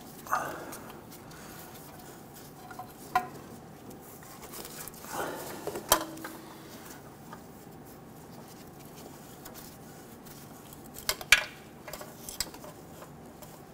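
Scattered light metallic clinks and taps from hand-threading a new oxygen sensor into its exhaust bung and handling its harness against the exhaust pipe, with a short ringing note after one click about six seconds in and the loudest two clicks close together near the end.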